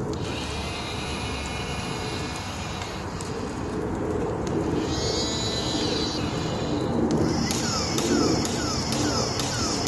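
Water from a toy remote-control fire truck's ladder nozzle spraying onto burning popsicle sticks, with a steady mechanical running sound under it. Hissing comes in spells, about five seconds in and again from about seven and a half seconds on.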